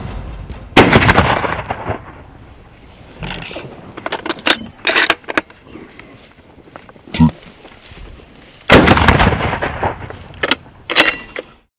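Two shots from a scoped hunting rifle, about eight seconds apart, each a sharp crack followed by a rolling echo that fades over a second or more. Shorter clicks and knocks fall between the two shots.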